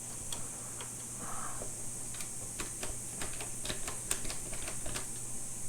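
Irregular light clicks and taps of a hand tool working small Torx screws in the steering wheel's metal and plastic parts, over a steady high hiss.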